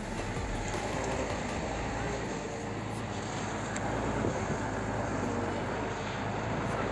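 Flatbed truck running along a rutted, muddy dirt track: steady engine and road noise, heard from the cab's open side window.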